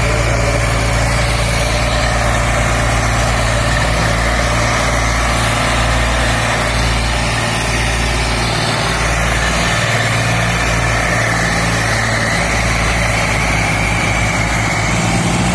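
Tractor diesel engines running hard under a heavy load, pulling a fully loaded sugarcane trolley, with a steady low engine drone.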